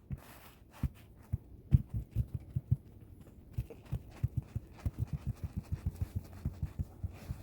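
Heavy footsteps on a thick crust of ice over snow: a run of dull thumps and crunches, several a second, as the crust takes a person's full weight.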